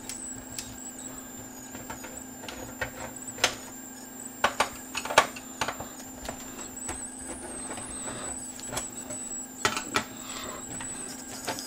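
Scattered clicks and knocks of hands handling the metal case of a Panasonic CD player, with a couple of louder knocks in the middle, over a steady low hum and a faint high whine.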